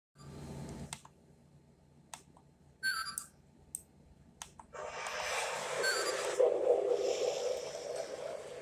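Lionel O gauge locomotive's electronic sound system: scattered clicks and a short whistle-like chirp, then from about halfway a steady hissing rumble as the sound effects start up.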